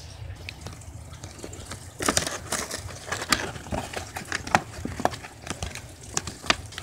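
Cardboard-and-clear-plastic display box of a model airliner being handled and pulled at to get through its tape: irregular crackling and crinkling of plastic and cardboard, starting about two seconds in.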